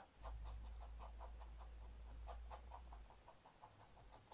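Dip pen nib scratching on paper in quick short strokes, about four or five a second, as ink is hatched into a drawing. A faint low rumble underlies the first three seconds.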